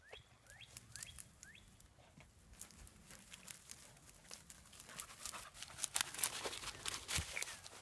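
Dry grass, brush and leaves crackling and rustling as a beagle pushes through the cover and the walker follows, busiest and loudest in the second half. In the first two seconds, a series of short, high rising chirps.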